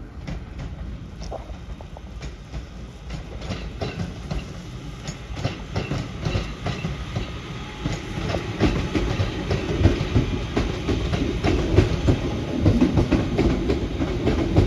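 Class 323 electric multiple unit rolling in over the junction pointwork, its wheels clicking over the rail joints and crossings. The clicks come thicker and the running louder as it nears.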